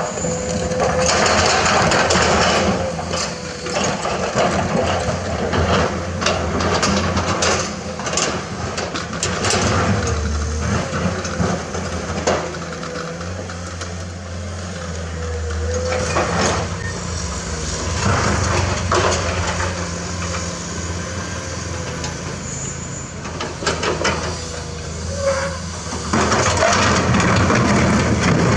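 Komatsu hydraulic excavator's diesel engine running under load while its bucket digs into limestone. Rock scrapes, grinds and clatters in repeated noisy bursts over the steady engine drone.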